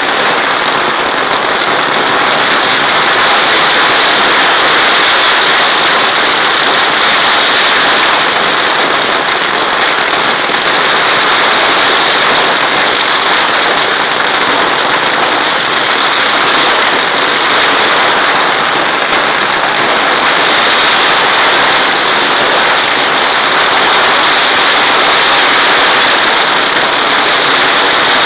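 Ground-level fireworks going off in a continuous, dense crackle that blends into a steady, loud rush, with no single bang standing out.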